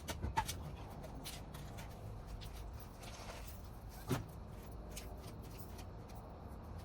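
A few sharp knocks and clicks, clustered in the first half-second with another single knock about four seconds in, over a low steady rumble.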